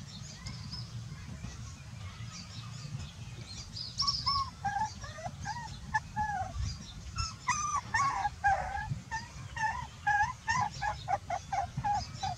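Puppy whimpering: short, rising-and-falling whines begin about four seconds in and come faster and closer together toward the end.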